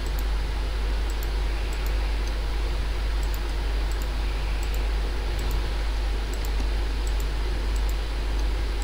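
Steady low hum and hiss, with faint, irregular computer mouse clicks a couple of times a second as points are clicked into a stitch line.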